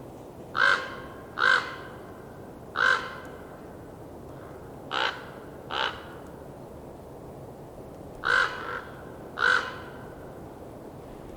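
A crow cawing seven times, in loose pairs, with two calls in the middle fainter than the rest.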